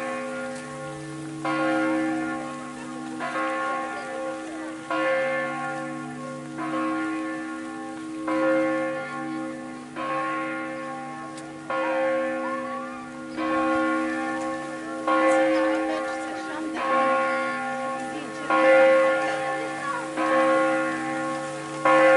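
Church bells pealing, a new stroke about every second and a half to two seconds, each one ringing on over the next.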